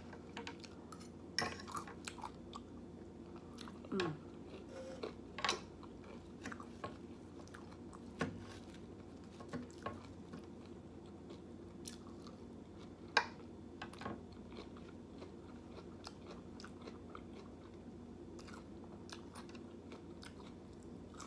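A person chewing and biting food close to the microphone, with irregular wet mouth clicks and occasional crunches; one louder click comes about two-thirds of the way through.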